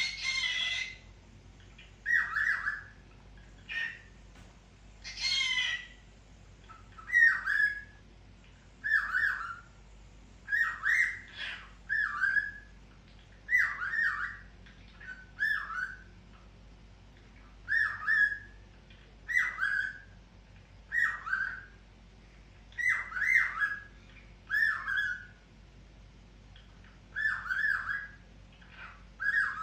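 Cockatiel calling: a long run of short, repeated calls, often in pairs, about one every second or so, with a few longer, harsher screeches in the first six seconds.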